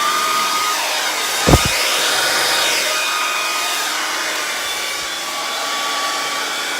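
Handheld blow dryer running steadily on the wet paint, a loud airy rush with a faint whine. A single brief thump about one and a half seconds in.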